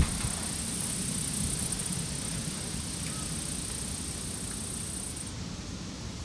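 Outdoor ambience: wind rumbling on the microphone under a steady high-pitched buzz, which cuts off about five seconds in.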